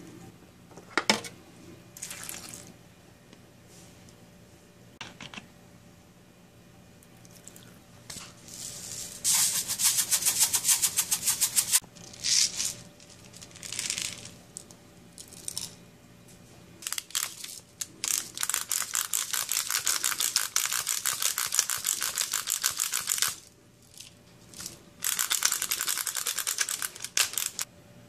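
Hand-twisted pepper grinder grinding peppercorns: several long spells of fast, fine grating, with a sharp knock about a second in and a few short scrapes between.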